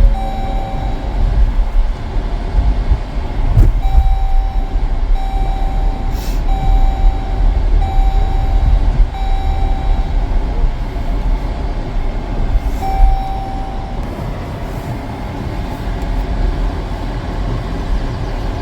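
A steady low rumble, like a vehicle or wind, with a single-pitched electronic beep repeating about once a second for several seconds and sounding once more later.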